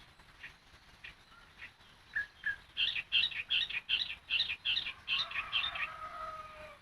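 Sooty-headed bulbul (trucukan) singing: a few scattered short notes, then a quick run of about three bright chirps a second, ending in a couple of lower drawn-out notes.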